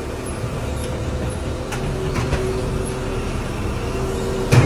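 Heavy vehicle engine running steadily with a low rumble and a steady whine, most likely the recovery crane working the lift. A single loud thump comes near the end.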